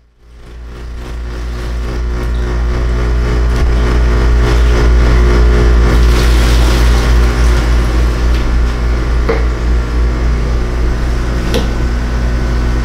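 Boat's outboard motor running steadily at speed, with rushing wind and water noise. The sound builds up over the first two seconds, then holds at a steady level.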